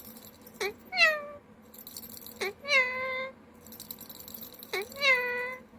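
Indian ringneck parakeet vocalizing three times. Each call is a drawn-out, nasal, pitched call with a sharp start that then settles into a held tone.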